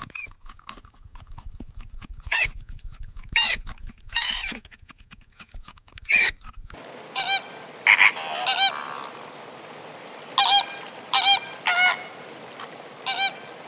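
Domestic fowl calling in short, harsh, repeated calls. About halfway through the recording changes to a second bird giving pitched honking calls, roughly one every half second to two seconds.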